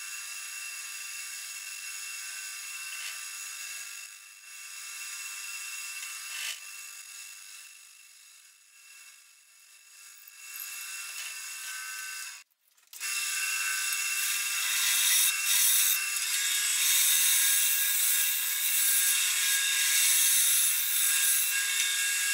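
Wood lathe running with a steady whine while a drill bit bores a hole into the spinning wood blank. About twelve seconds in the sound breaks off briefly, then comes back louder with the rough rasping of the bit cutting deeper into the wood.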